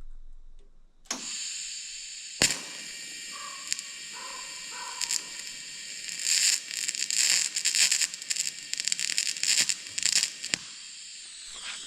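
TIG welding arc running on a cracked copper radiator seam: a steady high buzz and hiss that starts about a second in, with irregular crackling and spitting through it, and cuts off near the end. The welder puts the spitting down to coolant burning out of the seam.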